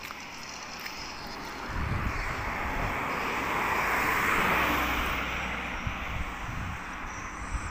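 A road vehicle passing close by: tyre and engine noise rises to a peak around the middle and fades away, over a low rumble.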